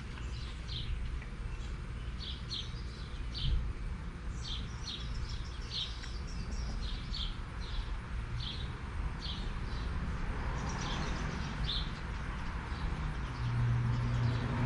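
A small bird chirping over and over, short high chirps about one or two a second, over a steady low rumble. A low steady hum comes in near the end.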